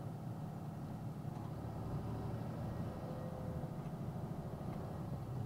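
Box truck being driven slowly, heard from inside the cab: a steady low engine and road hum with no change in pitch.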